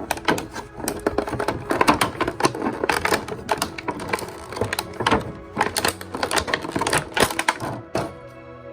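Quick, irregular clicks and rattles of a small plastic toy and its packaging being handled, stopping about eight seconds in, over soft background music.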